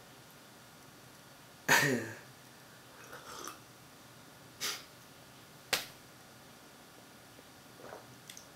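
Mouth sounds of someone drinking water from a glass: a loud sip with a short throaty 'mm' about two seconds in, then a few quieter sharp lip smacks and clicks spaced out over the rest.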